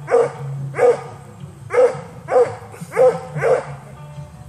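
A coonhound barking repeatedly at a rabbit: six loud barks at a steady pace, about one every two-thirds of a second, stopping shortly before the end.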